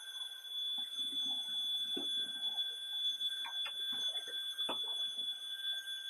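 Two cordless stick vacuum cleaners, a Proscenic P8 Max and a Dyson V6, running together over carpet: a steady high-pitched motor whine, with scattered ticks and rattles through the middle as the cleaner heads work the carpet.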